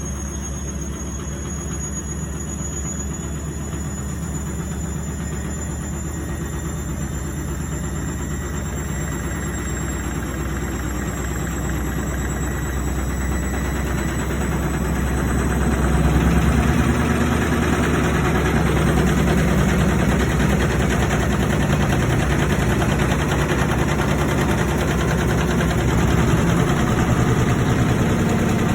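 IFB Senorita WXS washing machine running, with a strong low hum and a thin high whine that rises slowly in pitch over the first ten seconds; it grows louder about halfway through.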